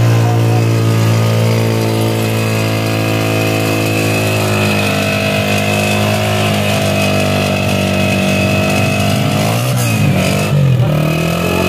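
Honda CG125's single-cylinder four-stroke engine running steadily, its pitch sagging slightly partway through, then dipping and rising a couple of times near the end.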